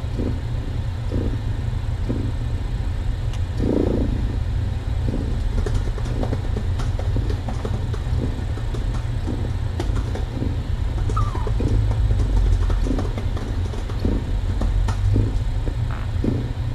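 Mother cat purring with a steady low rumble while her kittens nurse, with soft short sounds repeating irregularly about every half second to a second.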